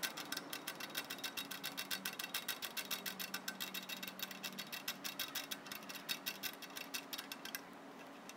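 Parking brake shoe star-wheel adjuster clicking tooth by tooth as a flat-blade screwdriver turns it, a rapid even run of sharp ticks, several a second, that stops shortly before the end. The adjuster is being screwed in on itself to back the shoes off and release their pressure on the drum.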